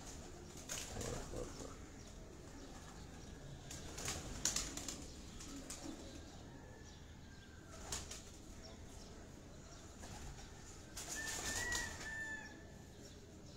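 Domestic high-flyer pigeons flapping their wings as they are let out of their loft, in four short bursts of wingbeats, the loudest about four seconds in.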